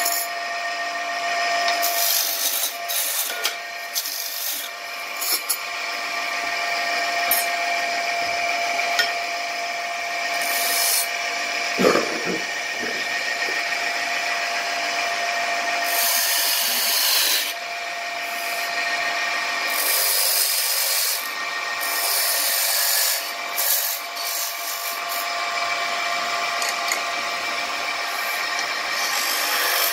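Wood lathe running with a steady whine while a turning gouge cuts into a spinning wooden blank, each cut a hissing, scraping rush of a second or two, several times over.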